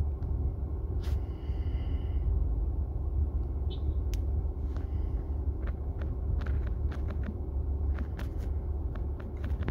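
Steady low background rumble. From about four seconds in, a scattering of light taps runs through it: fingers tapping letters on a phone's touchscreen keyboard.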